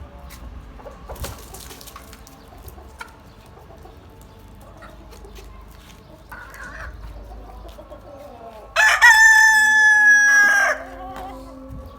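A rooster crowing once, a loud call of about two seconds starting about nine seconds in, with quieter chicken clucking before it.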